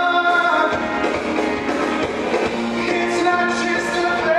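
A male lead singing a pop-rock show tune over a live theatre pit band, opening on a long held note.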